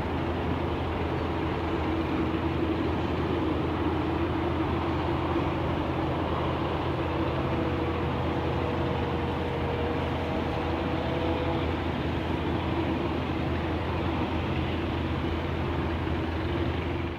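Jet engines of a Boeing 787-9 (GE GEnx-1B) running steadily at idle while the airliner holds on the runway: an even rumble with a low hum, and a faint extra whine between about seven and twelve seconds in.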